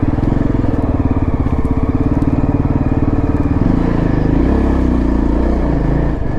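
Motorcycle single-cylinder engine running steadily while being ridden, its note shifting about four seconds in.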